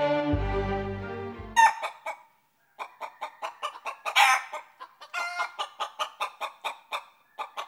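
A violin music track ends about a second and a half in. Then chickens clucking: a fast run of short clucks, about five a second, broken by a louder squawk or two.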